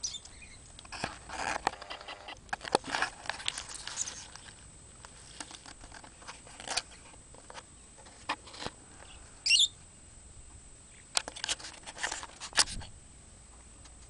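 Pet budgerigars in a wire cage: scattered clicks and taps, a busier stretch of chatter in the first few seconds, and one short, loud, warbling chirp about nine and a half seconds in.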